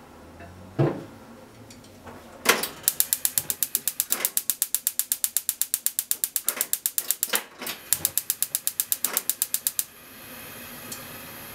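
Gas stove burner igniter clicking rapidly, about six clicks a second with a short break in the middle, until the burner lights near the end and a steady gas flame hiss takes over. A single knock comes just before a second in.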